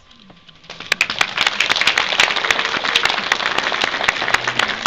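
An audience applauding, many hands clapping, breaking out about a second in and carrying on steadily.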